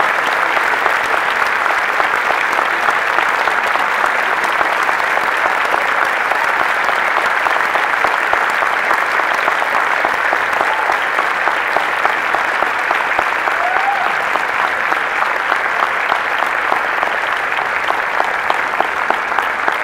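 Large audience applauding steadily, with one pair of hands clapping close by in a quick even rhythm over the crowd's applause.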